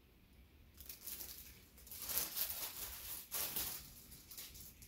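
Plastic packaging and a cotton t-shirt rustling as the shirt is handled, in irregular bursts starting about a second in.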